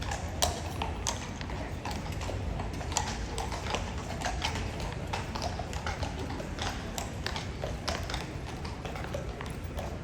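Horses' hooves clopping on a hard surface in an irregular run of clops, over a steady low rumble of city background.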